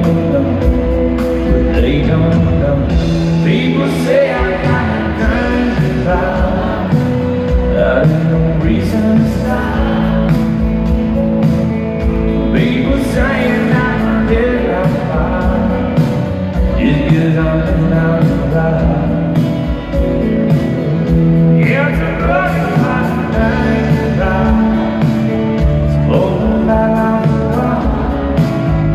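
Live country band playing a song through an arena PA: a male lead singer over electric guitars, bass and drums, with a steady beat.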